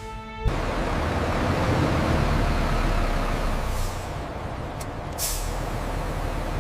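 Heavy industrial machinery running with a steady, noisy rumble that starts abruptly about half a second in as music cuts off, with three short bursts of hissing air around the middle.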